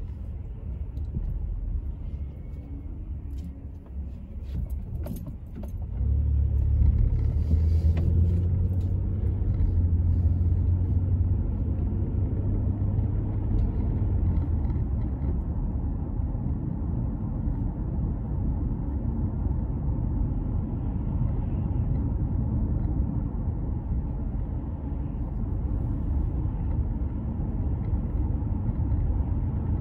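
Car engine and tyre noise heard from inside the cabin. It is quieter at first with a few light clicks and rattles, then becomes a louder low rumble about six seconds in as the car gets under way, and settles into a steady drone while cruising.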